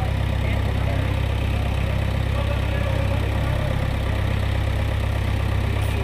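JCB 3DX backhoe loader's diesel engine running steadily, a low even drone with no change in pitch or loudness.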